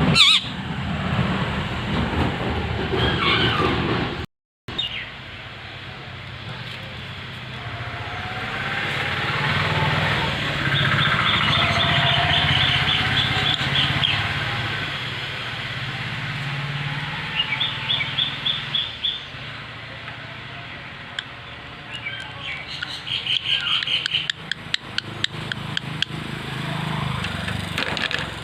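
Parakeet calling in short, rapid series of high chirps every few seconds over a steady low rumble, with a run of sharp clicks near the end.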